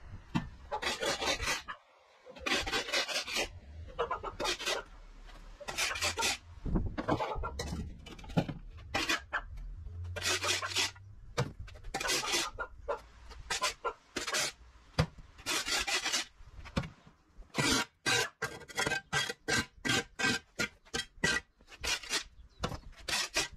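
Flat-bladed shovel scraping moss and dirt off a concrete path, in a run of separate scraping strokes that come quicker and shorter near the end.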